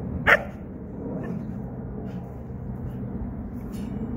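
A husky gives a single short, sharp bark about a third of a second in, over a steady low background hum.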